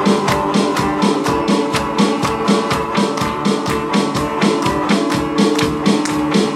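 Band music with a steady drum-kit beat and guitars.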